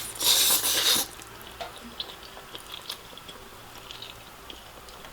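A loud wet slurp of saucy noodles lasting about a second, followed by quiet chewing with small wet clicks.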